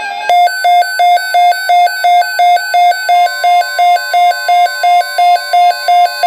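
Electronic emergency alert tone beeping rapidly and evenly, about three beeps a second, with a steady higher tone joining about three seconds in: the attention signal that opens an Emergency Alert System weather alert.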